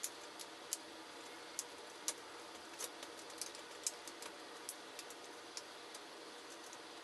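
Irregular light clicks and ticks, a couple each second, from a small screwdriver, screws and the plastic case of a Dell Inspiron 11z laptop being handled during reassembly, over a faint steady hiss.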